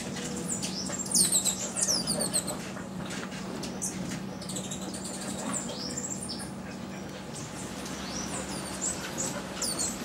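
Several birds calling: a cluster of quick, high chirps and downward-sliding notes about a second in, then scattered thinner calls, over a low steady hum.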